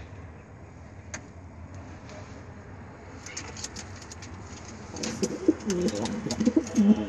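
Domestic pigeon cooing, a run of low, wavering coos in the last two seconds. Scattered sharp clicks and rustles come before and with the coos.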